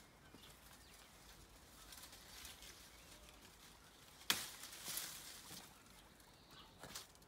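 Handheld secateurs snipping a thin bay branch, one sharp click about four seconds in, followed by a second of leaves and twigs rustling. Softer leaf rustling comes before the cut as the bush is handled.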